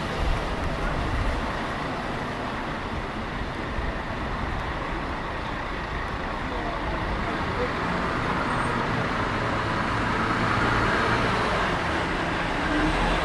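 City street ambience: road traffic running steadily, with voices of passers-by mixed in. The traffic grows somewhat louder partway through, as a vehicle draws near.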